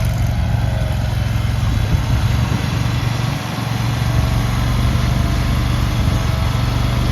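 Gasoline engine of a JQ Power JQ400 mini skid steer loader running steadily while the machine is driven, with a brief dip in level about three and a half seconds in.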